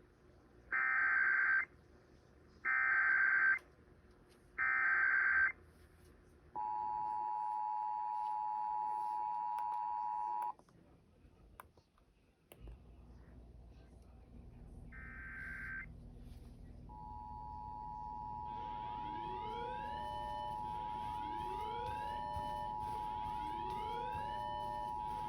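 Emergency Alert System tones: three short bursts of SAME header data screech, then the two-tone attention signal for about four seconds. After a pause there is one more short data burst. About 17 seconds in, a second two-tone attention signal starts, with rising chirps repeating roughly every two seconds over it.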